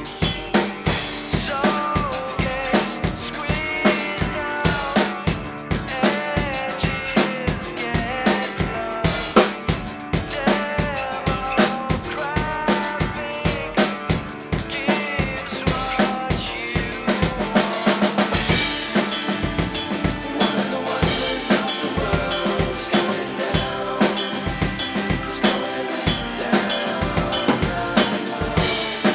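Rock drum kit played hard along with the band's recorded backing track: steady kick and snare with rapid cymbal and rimshot hits, under bending melodic lines from the recording.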